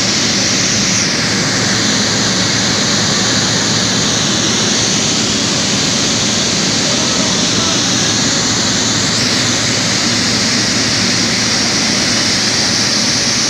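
Jet engines of a taxiing Saudi Arabian Airlines Boeing 777 running close by: a loud, steady rushing noise.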